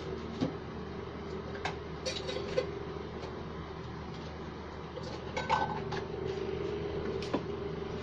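Dishes and utensils being handled: a few scattered clinks and knocks over a steady low background hum.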